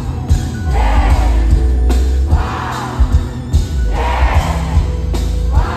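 Live pop concert music with a heavy bass beat and vocal phrases, heard amplified over the arena PA from within the crowd.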